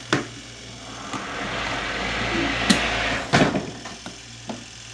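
Spin-dryer basket of a portable twin-tub washing machine spinning on its motor with a steady hum, now running properly after repair. A rushing noise swells and fades through the middle, and there are a few sharp knocks.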